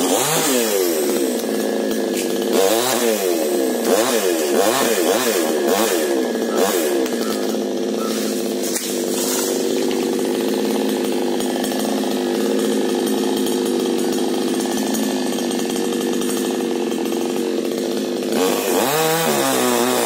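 Chainsaw cutting through a tree limb. The engine revs up and down several times in the first seven seconds, holds a steady pitch under load through the middle, and revs up and down again near the end.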